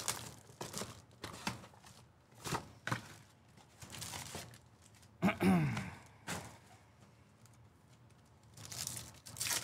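Hands tearing open the cardboard of a 2024 Bowman Mega Box of baseball cards, with clicks and rustling as it is handled and the card packs are pulled out. A brief voice-like sound comes about five seconds in.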